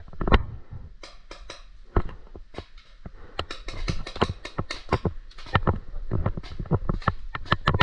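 Footsteps through long grass and brush with knocks and rattles of gear being handled: a run of short, irregular clicks and taps, sparse at first and thickest from about halfway on.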